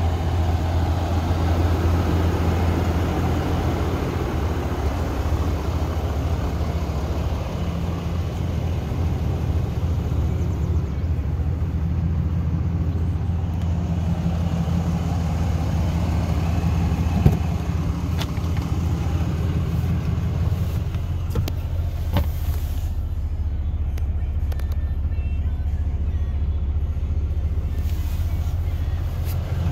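2019 Ram 2500 pickup's engine idling steadily, a continuous low rumble, with a few scattered clicks and knocks, the sharpest about halfway through. Near the end the sound is heard from inside the cab and grows duller.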